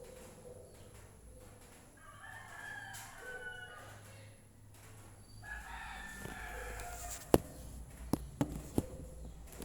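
A rooster crowing twice, each crow lasting about two seconds. A few sharp clicks follow near the end, the first the loudest.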